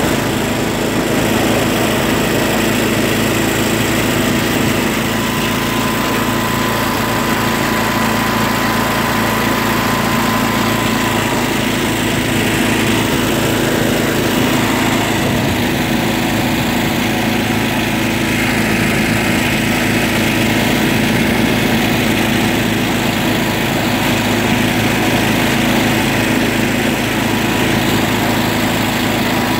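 John Deere riding lawn tractor's engine running steadily as the tractor is driven.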